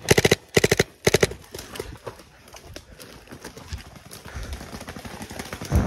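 Paintball markers firing in quick rapid bursts during the first second or so, followed by fainter footsteps running through woodland undergrowth, with a low thump near the end.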